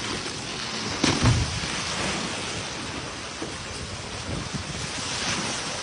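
Steady rushing noise of water running down an outdoor water slide, mixed with wind on the phone's microphone. There is a brief louder thump about a second in.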